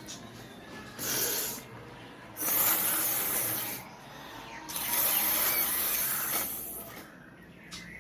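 A person blowing their nose hard three times, a short blow then two longer rushing blows of about a second and a half each, forcing mucus out of a nose congested by a heavy cold.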